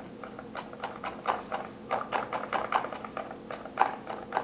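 Chef's knife pivoting on its tip and chopping down through garlic cloves onto a wooden cutting board, mincing them: quick, uneven knocks, about three a second.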